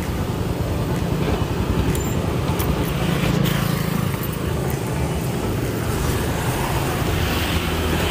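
Steady street traffic noise with a vehicle engine running close by, a continuous low rumble.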